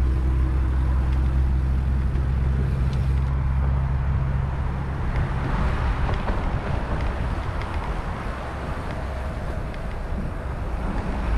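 Diamondback Hanjo gravel bike's tyres rumbling over the planks of a wooden boardwalk, changing about halfway through to a rougher hiss of tyres on a paved path, with wind on the helmet-mounted microphone.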